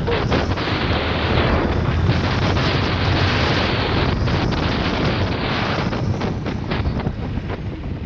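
Wind rushing over the microphone of a motorcycle ridden at about 55 km/h, with the engine's low rumble underneath. It eases a little near the end as the bike slows.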